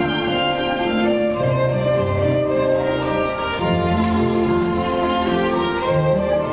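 Music accompanying a stage dance: a melody of long held notes moving in slow steps, over a light regular beat.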